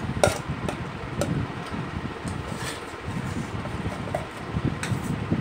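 Chewing a mouthful of chow mein, with a few sharp clicks of a steel spoon against a steel plate as more noodles are scooped up. A steady low background hum runs underneath.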